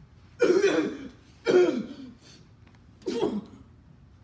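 A person coughing three times, each cough short and well over a second apart.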